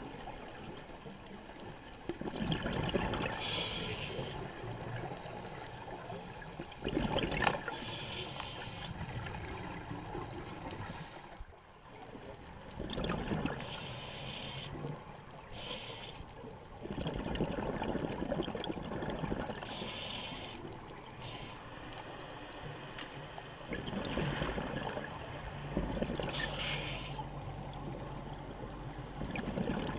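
Scuba diver breathing through a regulator underwater: a hissing inhalation and a bubbling rush of exhaled air, repeating every few seconds.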